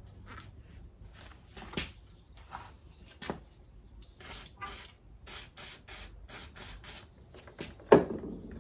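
Hand work on motorcycle fork parts: a run of short scrapes, rustles and light clicks, with a series of quick hissing strokes in the middle and one loud knock near the end.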